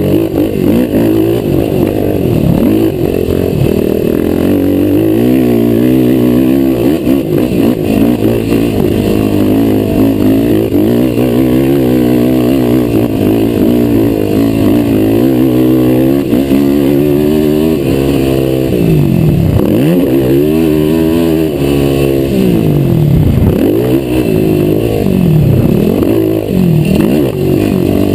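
Racing quad's engine heard from onboard under hard riding, its revs climbing and falling over and over as the rider opens and closes the throttle and shifts, with deep quick drops and rises about two-thirds of the way through.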